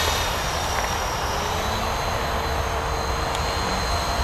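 Blade 450 3D electric RC helicopter in flight: its motor and rotor give a steady high whine made of a few fixed tones, shifting slightly in pitch as it flies a loop.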